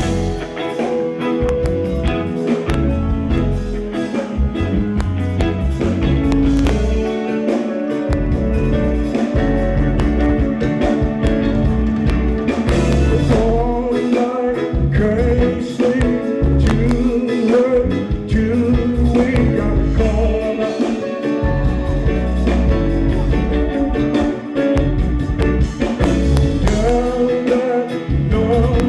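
A live R&B/funk band playing a song, with a heavy pulsing bass line, drums, guitar, and a voice singing that comes in more clearly from about halfway in.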